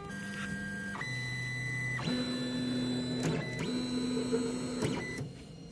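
Polaroid PlaySmart 3D printer auto-homing: its stepper motors whine in steady tones that jump to a new pitch every second or so as the axes move in turn, with a few short clicks. The motors stop about five seconds in.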